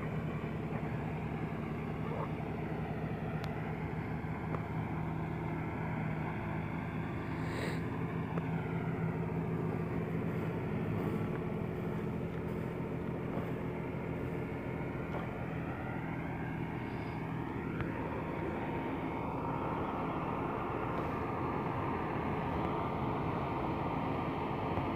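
Tractor engine running steadily as it works a flooded rice paddy: a continuous drone whose upper tone dips and rises slowly now and then.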